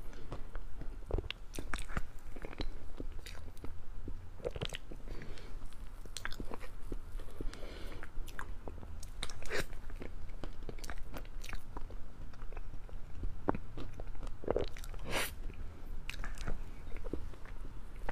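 Close-miked chewing and wet mouth clicks of a person eating soft, sticky chocolate lava cake with a jam filling: irregular short clicks throughout, the loudest about fifteen seconds in.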